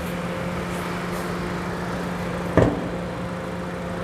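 Honda BR-V Prestige's 1.5-litre four-cylinder engine idling steadily with the air conditioning running. A single thump sounds about two and a half seconds in.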